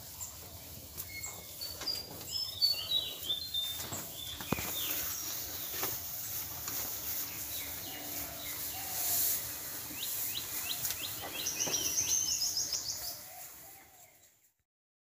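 Small birds chirping and twittering, with a few light knocks about four seconds in and a quick run of high chirps near the end, before the sound fades out.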